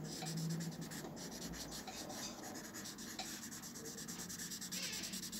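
Pencil shading on paper: faint, quick scratchy strokes of graphite laying down a dark-to-light gradation.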